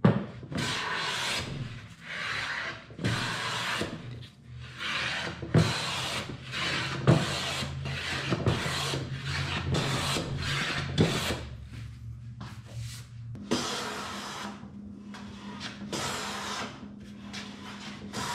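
Metal hand plane shaving a cherry board: a run of rough, rasping strokes just under a second apart, with sharp knocks between some of them. From about two-thirds of the way through the strokes become shorter and quieter.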